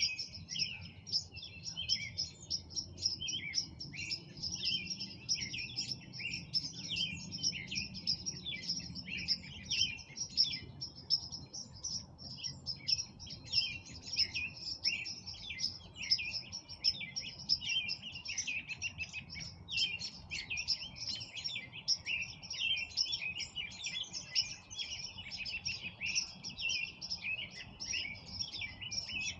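Many songbirds chirping and singing at once in a dense, unbroken chorus, over a faint low rumble.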